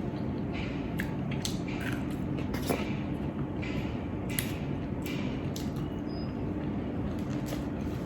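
Someone chewing a mouthful of crispy pan-fried rice, with scattered soft crunches and clicks, over a steady low hum.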